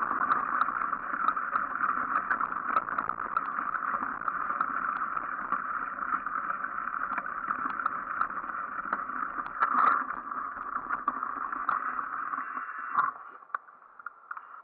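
Mountain bike rolling over a frozen, snow-patched dirt forest track: a steady rushing tyre noise heard through the mounted camera, with many small rattles and clicks. About 13 seconds in it cuts off with a click as the bike stops.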